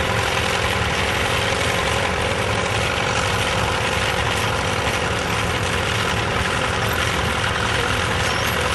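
Small vintage crawler tractor's engine running steadily while it pulls a plough through the soil.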